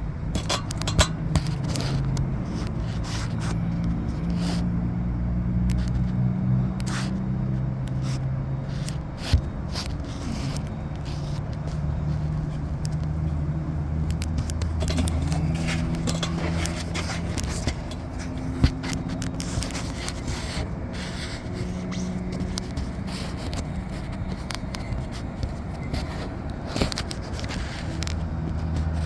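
Scraping, rustling and clicking from wiring and the phone being handled, over a low steady hum.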